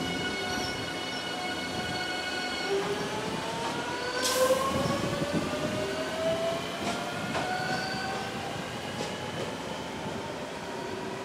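E257 series 5000 electric train's traction inverter and motors humming steadily, then starting to pull away: several tones climb steadily in pitch as it gathers speed. A short burst of air hiss comes about four seconds in.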